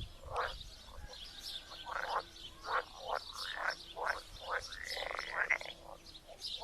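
Pond frog chorus: many frogs croaking in short, overlapping calls, about two a second, with one longer, drawn-out call near the end.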